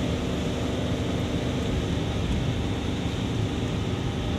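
Steady cabin noise of a car driving on a wet road: a low engine hum under the even hiss of tyres on wet tarmac.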